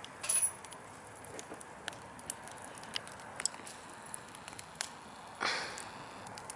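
Wood fire burning, crackling with irregular sharp pops over a low steady hiss. A brief hiss comes about a third of a second in, and a longer, louder one about five and a half seconds in.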